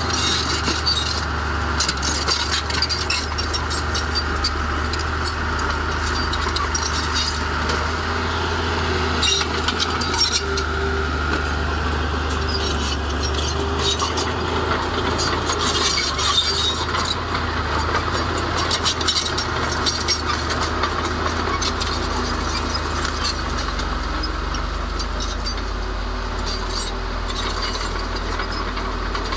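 Heavy diesel earth-moving machinery at work: a steady low engine hum with frequent clanks, knocks and scrapes of steel and rock throughout.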